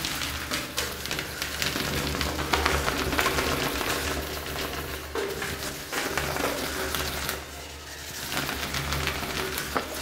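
Whiteboard being wiped with an eraser: repeated rubbing strokes across the board's surface, pausing briefly just before the end.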